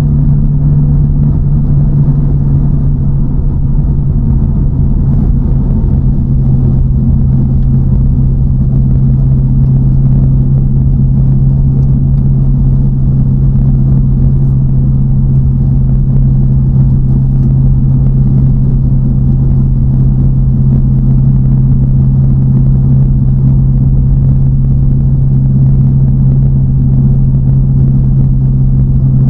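TVR Chimaera's 4.65-litre V8, bored out with a race cam, running at a steady cruise: a loud, even drone that holds nearly the same pitch throughout, with road noise underneath.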